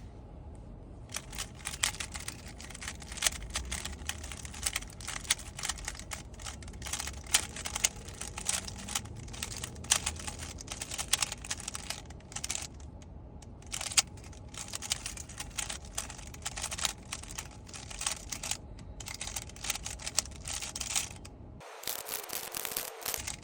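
A 3x3 Rubik's cube being turned quickly by hand, a dense, irregular run of plastic clicks and clacks with a few short pauses.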